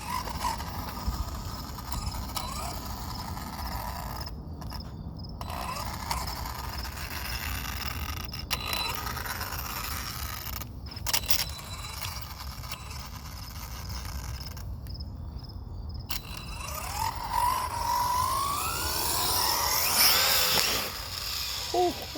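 Brushless electric motor of an RC car on a 3S battery, whining as it speeds up and slows down in repeated runs, with a few short cut-offs. A long rising whine builds near the end.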